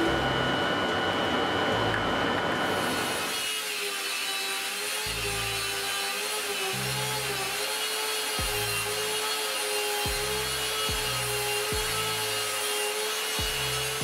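A router in a router table runs with a high whine for about three seconds, then an upturned belt sander in a bench stand runs steadily with a slightly wavering hum as a board end is sanded on it. Background music with a low bass beat plays underneath.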